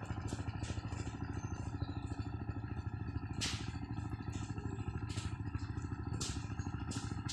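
A steady low rumble with a fast flutter, like a small engine idling, with short hissing bursts every second or so, the loudest about three and a half seconds in.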